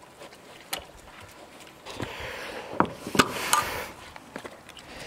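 Pigs crunching and chewing food scraps, with a few sharp knocks and rubbing about three seconds in as the camera is picked up and handled.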